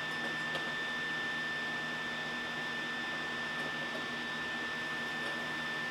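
Steady background hum and hiss with a constant high whine, as from shop machinery running, with a couple of faint clicks.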